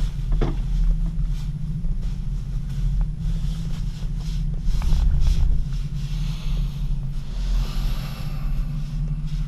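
Steady low rumble of an aerial cable car gondola in motion, heard from inside the cabin, with a faint airy hiss that swells a little near the end.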